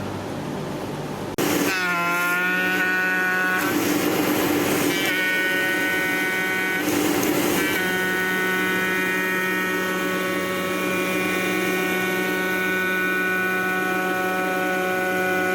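Pneumatic oscillating knife on a CNC foam cutter running, a loud, steady, high buzz that cuts in suddenly about a second and a half in, its pitch dipping briefly as it starts. The buzz breaks into a hissier, rougher noise twice, a few seconds in and again about seven seconds in, before settling back to the same steady pitch.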